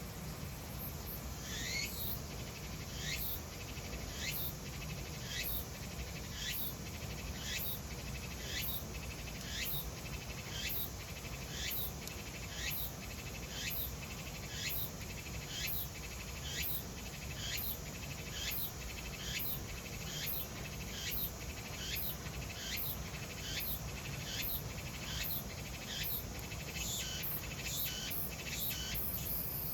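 Cicada singing: a short note repeated about one and a half times a second, each one falling in pitch, coming faster near the end. A steady low noise runs underneath.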